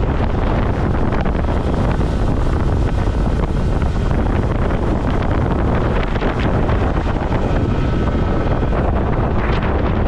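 Wind buffeting the microphone of a fast-moving open motorboat, over the rush of its engine and wake.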